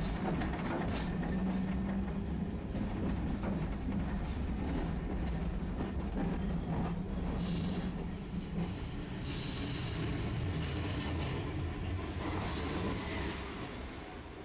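Tosaden streetcar running on its rails, with wheel-on-rail noise over a steady low hum for the first nine seconds or so, then fading near the end.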